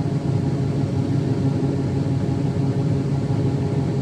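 Combine harvester running steadily while harvesting corn: an even engine and machinery drone with a low hum, heard from inside the cab.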